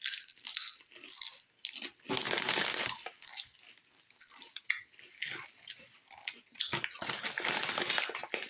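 A person crunching and chewing potato chips close to the microphone, in irregular bursts of crunching with short pauses between.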